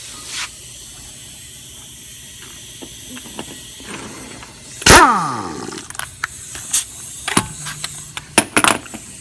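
An impact wrench fires one loud, short burst about five seconds in to loosen a wheel's lug nut, and its pitch falls away as it stops. Sharp metallic clicks and knocks follow as the wheel is worked off.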